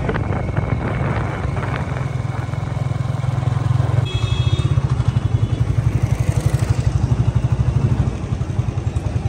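Motorcycle engine running while riding along a road. Its steady low hum turns into a fast, even pulsing about four seconds in.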